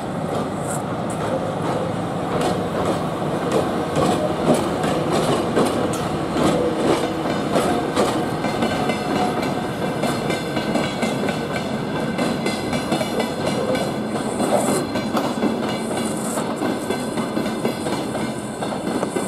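Freight train hauled by a VL10U electric locomotive passing, its wagons' wheels clattering steadily over the rail joints.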